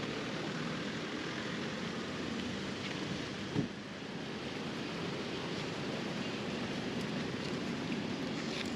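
Steady rushing street ambience, with one short thump about three and a half seconds in.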